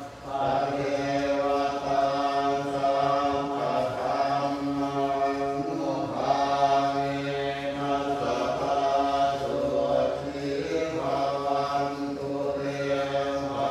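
Buddhist monks chanting in unison on a steady, near-monotone pitch, the voices held in long unbroken phrases with only brief pauses for breath.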